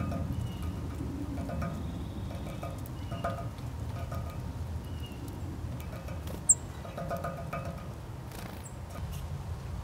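Wind chimes tinkling now and then over a low steady outdoor rumble, with faint bird calls and one sharp, high-pitched bird chirp about six and a half seconds in.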